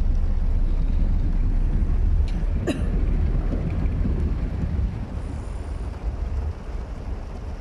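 Low, steady rumble inside a car's cabin as it moves in heavy rain, easing a little after about five seconds, with one sharp click about two and a half seconds in.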